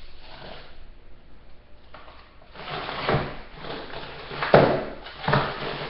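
Frozen food packages being moved about in a freezer: rustling and scraping, then a couple of sharp knocks, the loudest about four and a half seconds in.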